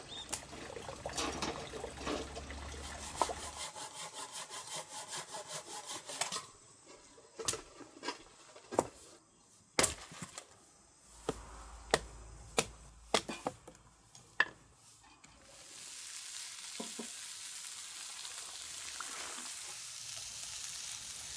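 Meal preparation: scattered knocks and taps of utensils on a board and dishes, then from about two thirds of the way through a steady hiss of food frying in a pan.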